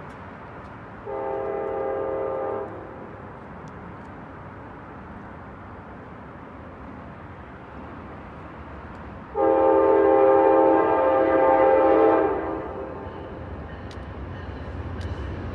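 Amtrak locomotive air horn sounding two blasts as the train approaches. There is a short blast about a second in and a longer one of about three seconds past the middle, over a low rumble that builds toward the end.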